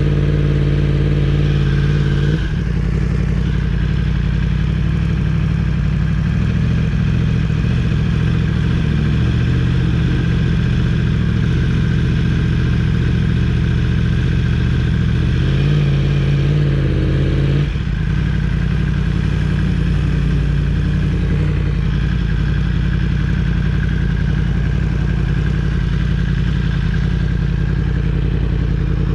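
Yamaha R1 motorcycle's crossplane inline-four engine running steadily. Twice, at the start and about 16 seconds in, the engine note is briefly higher and louder, and each time it drops off suddenly.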